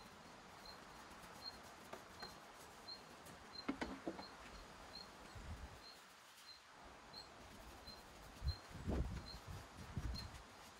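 Faint swishes of a paintbrush spreading finish over charred wood, with a few low thumps near the end. A short high chirp repeats evenly about twice a second in the background.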